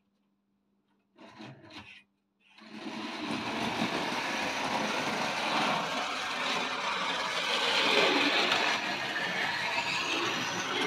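Tri-ang Railways model train running on the layout's track: a steady, continuous grinding running noise from the motor and wheels that starts about two and a half seconds in. It follows a brief rattle about a second in.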